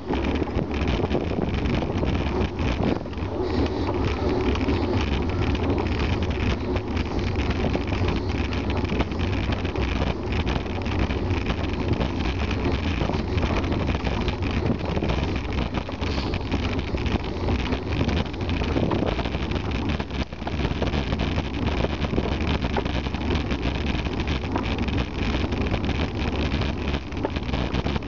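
Wind noise on the microphone over road noise from a bicycle riding along a tarmac lane, with frequent small knocks and rattles from bumps in the road.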